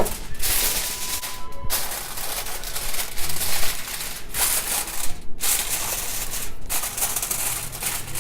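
Aluminum foil crinkling as it is pressed and folded tightly over the rim of a pan, an irregular crackling with a few brief pauses.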